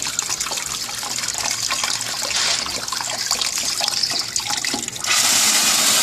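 Water running from an outdoor spigot into a plastic bucket, splashing. About five seconds in, the flow suddenly gets louder and becomes an even hiss as the tap is opened wider.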